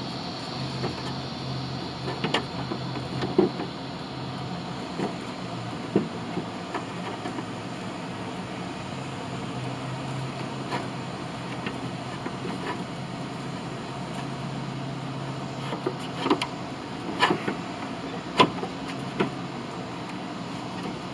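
Scattered clicks and knocks of parts being handled as the bottom cover and new shift cable are fitted on a Honda HRX217 mower, over a steady low hum. The knocks come in two clusters, a few near the start and a denser run in the last third.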